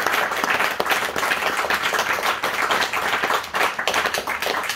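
Small audience applauding: many hands clapping steadily and densely.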